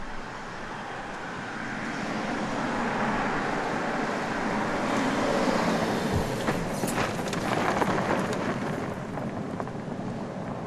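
BMW X3 SUV driving past, its engine and tyre noise swelling to a peak about halfway through and then easing off, with a spatter of small clicks as loose stones are thrown up.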